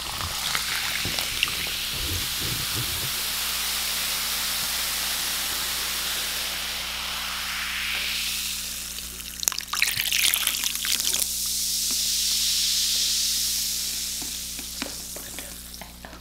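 Carbonated drink fizzing in a plastic cup held close to the microphone, a steady hiss that swells and eases as the cup moves. A few sharper crackles and clicks come about ten seconds in, and the fizz fades near the end.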